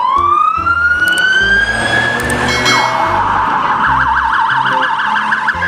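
Police car siren: a slow rising wail, then about halfway through it switches to a fast yelp, roughly six up-and-down sweeps a second, and near the end it jumps back to a steady high tone.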